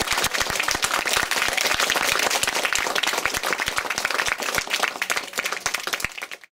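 Audience applauding: many hands clapping in a dense, steady clatter that fades out just before the end.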